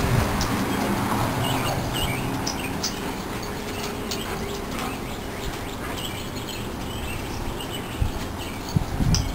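Small birds chirping again and again over the rumble of wind and handling on a moving phone microphone, with two thumps near the end.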